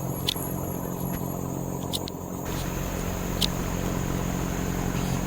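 Steady low mechanical hum, like a running motor or engine, with a few light clicks.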